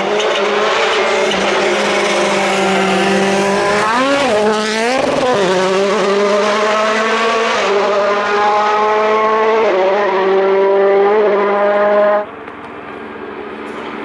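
Hyundai i20 Coupe WRC rally car's 1.6-litre turbocharged four-cylinder engine at high revs, the note dipping and swooping about four seconds in, then stepping down in pitch twice as it shifts up. About twelve seconds in it cuts off suddenly to a quieter engine further away.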